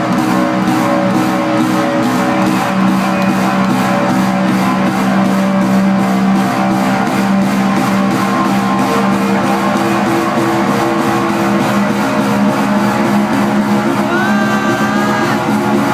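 Loud hardstyle dance music over a sound system, with a steady kick beat and held synth chords.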